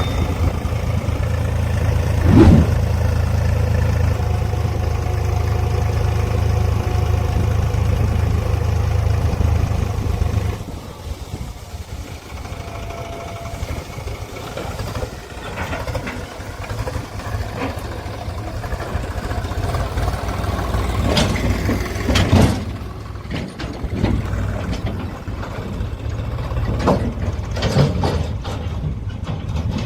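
Diesel engine of heavy farm or construction machinery running steadily; about ten seconds in the steady hum drops away, leaving a quieter, rougher engine sound with scattered knocks.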